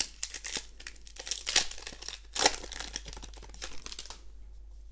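Foil wrapper of a Magic: The Gathering booster pack crinkling and tearing as it is ripped open by hand and the cards are pulled out, with the loudest rips about a second and a half and two and a half seconds in. The crinkling stops shortly before the end.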